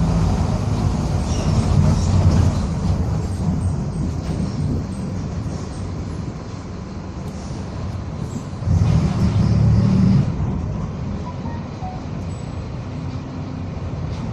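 Mercedes-Benz OF-1722M bus under way, its engine running steadily with a louder surge about nine seconds in that lasts about a second and a half. This bus is known for a growling differential.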